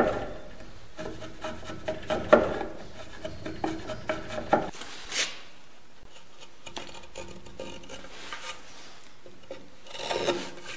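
Steel timber-framing chisel paring wood from the bottom of a saddle notch in a run of scraping strokes. About halfway through, these give way to quieter, lighter scraping as a knife blade shaves the notch surface.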